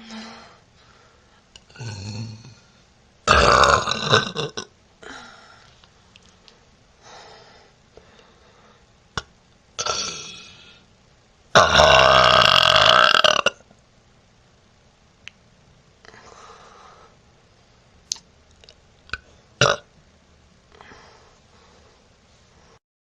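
A woman burping, one burp after another: two long, loud burps about three seconds in and about twelve seconds in, the second lasting about two seconds, with shorter, softer burps between them. A few short clicks come near the end.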